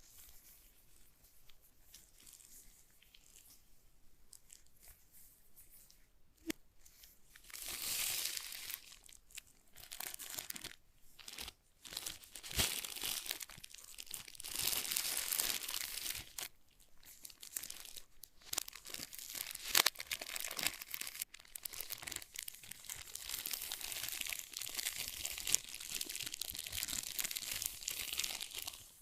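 Packaging being handled, crinkling and tearing in bursts of rustle with a few sharp clicks, after a quieter first several seconds.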